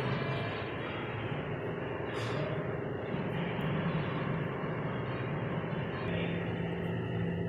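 Steady machine-like hum and rushing background noise, with a faint steady tone running through it and a brief swish about two seconds in.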